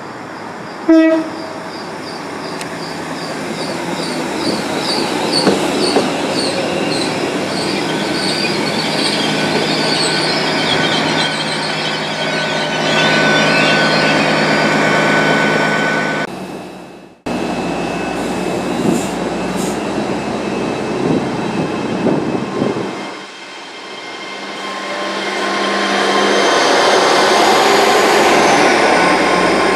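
GWR Intercity Express Train (Class 800-series) passing a station: a short horn blast about a second in, then the rising rush and wheel-on-rail clatter of the coaches going by, dipping briefly and building again near the end as the rear cars pass.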